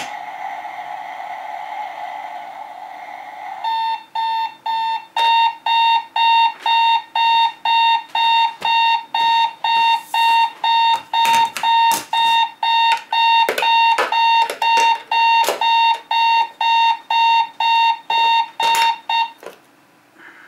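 Rocket-shaped novelty alarm clock going off: a steady tone with hiss for the first few seconds, then rapid electronic beeping, about two beeps a second, with scattered clicks. The beeping stops abruptly near the end.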